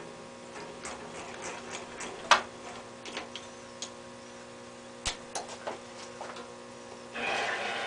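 Minilathe mechanism handled by hand: a few sharp clicks and knocks from its controls and carriage over a steady faint hum, the sharpest about two seconds in. Near the end the lathe's gear train starts running with a louder, even mechanical whir.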